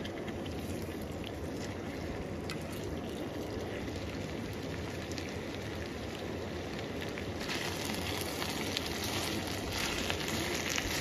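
Shredded potato and garlic sprouts sizzling in a small frying pan over a camping gas stove while being stirred with chopsticks; the sizzle gets louder about seven seconds in.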